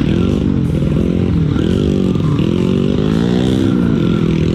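Small single-cylinder trail motorcycle engine, heard from on board, revving up and down as the throttle is worked; its pitch dips and climbs again several times.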